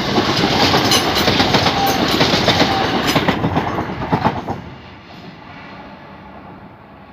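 Class 375 Electrostar electric multiple unit passing close by, its wheels clattering over the rails with a quick run of clicks. About four and a half seconds in the sound drops off sharply as the last carriage clears, leaving a fading rumble.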